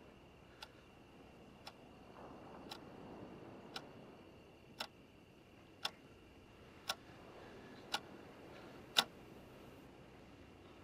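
Clock ticking about once a second, each tick louder than the last, ending on the loudest tick about nine seconds in, after which the ticking stops.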